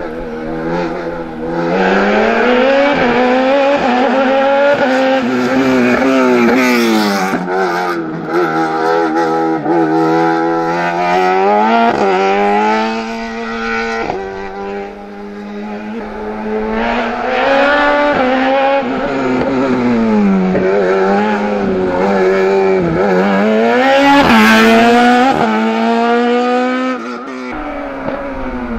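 Open sports-prototype race car's engine revving hard and dropping again over and over as the car brakes and accelerates through cone chicanes, the pitch rising and falling every few seconds.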